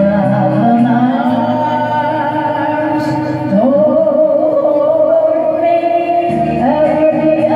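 A woman singing into a microphone over recorded backing music, holding long notes.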